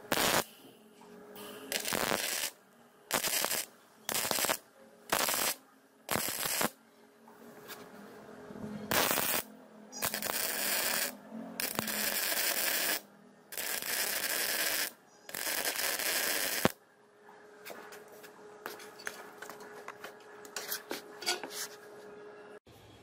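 Electric arc welding on a steel suspension mount: about six short tack-weld bursts of arc noise in the first seven seconds, then five longer weld runs of one to one and a half seconds each, followed by faint scattered ticks near the end.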